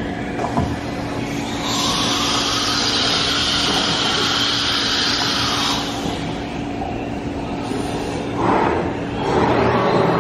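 Industrial machinery running with a steady hum, joined by a loud hiss from about two to six seconds in and a brief surge near the end.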